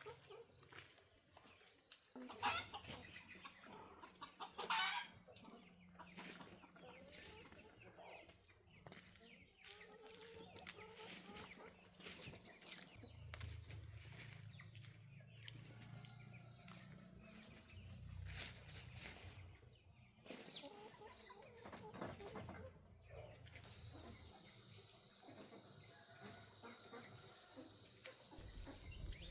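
Chickens clucking, with scattered small knocks and rustles. About six seconds before the end, a steady high-pitched tone cuts in suddenly and holds at one pitch; it is the loudest sound here.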